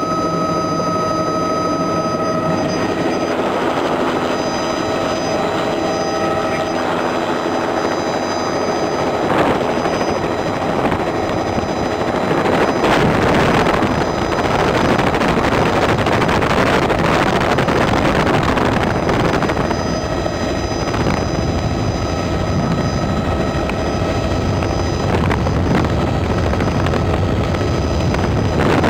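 Helicopter running loud and steady: a high whine with a broad rushing noise of rotor and air. The whine fades after the first few seconds as the rushing grows.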